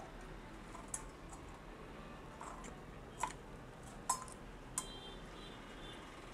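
Faint, sporadic clicks and taps as the fans and heatsink of a dual-tower CPU air cooler are handled and adjusted: four or five sharp, separate clicks spaced a second or so apart.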